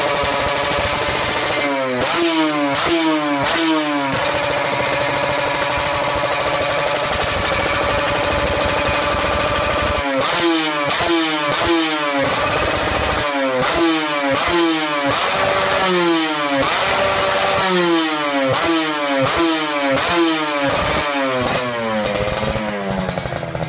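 Two-stroke motorcycle engine through an aftermarket YY Pang exhaust, running at steady revs and then blipped in several quick runs, the revs snapping up and dropping back about twice a second.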